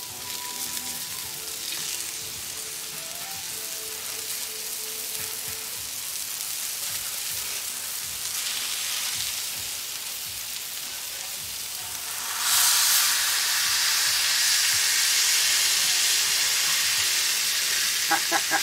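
A beef burger patty sizzling on a hot flat-top griddle. About twelve seconds in, the sizzle suddenly grows louder and stays loud as the patty is pressed flat under a cast iron skillet set on foil.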